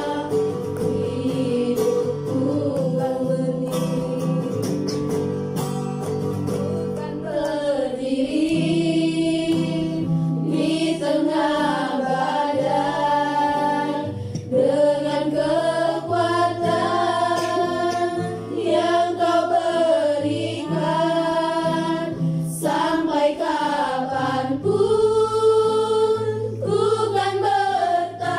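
A small group of women singing a worship song together in unison, accompanied by a strummed acoustic guitar.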